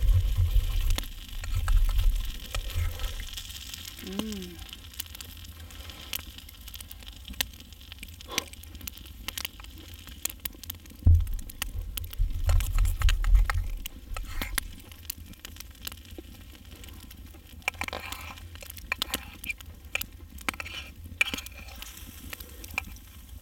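Knife and fork clicking and scraping against a steel frying pan as a steak is cut, with faint crackling. There are dull low thuds in the first few seconds and again about halfway through.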